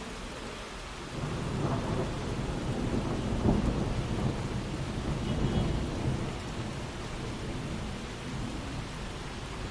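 Heavy rain falling steadily, with a low rumble of thunder that swells about a second in, peaks midway and fades out.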